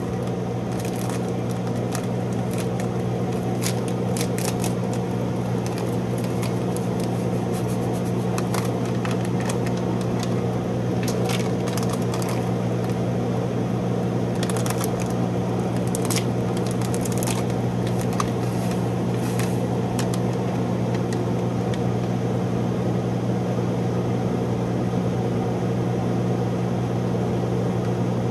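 Food frying in a pan, with scattered crackles and pops over roughly the first twenty seconds, over a steady low hum from a kitchen appliance.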